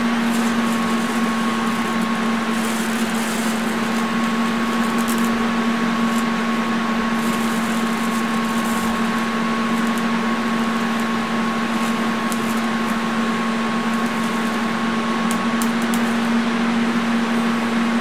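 TIG welding arc from a Lincoln Square Wave TIG 200, burning continuously as filler rod is added to build up metal: a steady buzz with a hiss over it.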